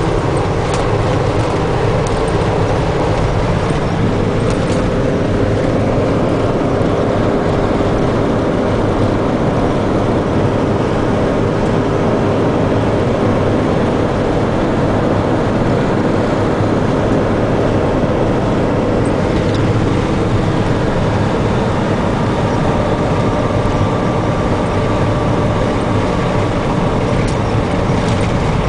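Steady engine and road noise inside a moving minibus at cruising speed: an even, unbroken drone of engine, tyres and wind, with a faint constant hum running through it.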